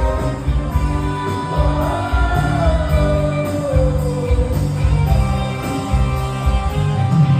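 Live brega band playing with a singer, a sung melody over a pulsing bass beat.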